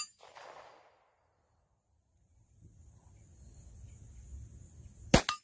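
Pistol shots: the echo of one shot fades in the first second, then two shots crack close together near the end, each followed by a short echo.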